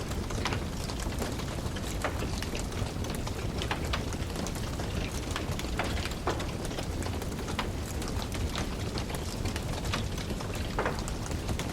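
Fire burning in a fireplace: a steady low rumble of flames with irregular crackles and pops scattered throughout.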